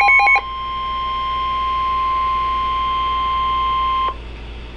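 Emergency Alert System warning tones: a pulsing beep pattern stops just after the start, then a single steady alert tone of about 1 kHz, the NOAA Weather Radio 1050 Hz warning alarm, holds for almost four seconds and cuts off abruptly. A low steady hum remains after it.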